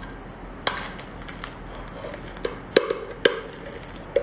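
Spicy lobster tail shells being cracked apart: four sharp cracks, three of them in the second half, with softer handling noise between.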